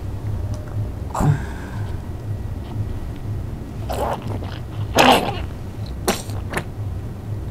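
A young baby's short coughs and whimpering sounds, a few separate bursts with the loudest about five seconds in, over a steady low hum.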